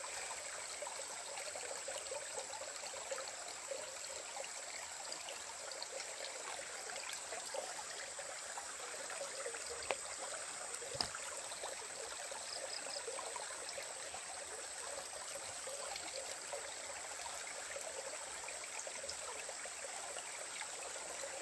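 Stream water flowing steadily, with two faint clicks about halfway through.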